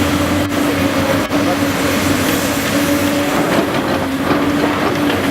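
Caterpillar 385BL excavator's diesel engine running hard while digging, with a steady humming tone over the engine noise.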